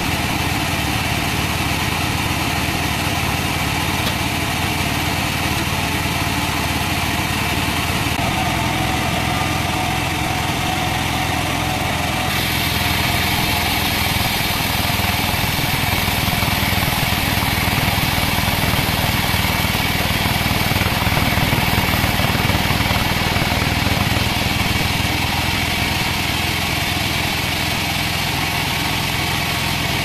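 Large band sawmill running steadily, its blade sawing lengthwise through a teak log.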